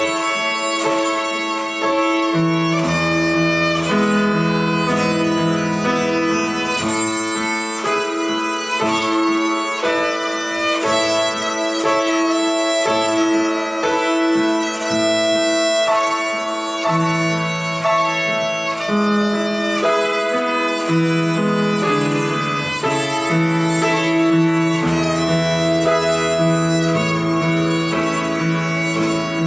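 Violin playing a simple melody in steady bowed notes, over a lower accompaniment whose bass notes change every couple of seconds.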